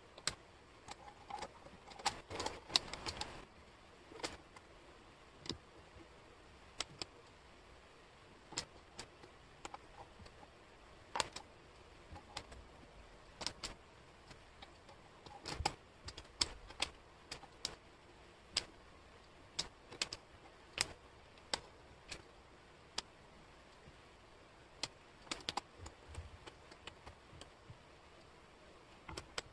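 Wooden jigsaw puzzle pieces clicking and tapping as they are picked up, sorted and fitted, in scattered irregular clicks. About two to three seconds in there is a short flurry of pieces shuffled against each other.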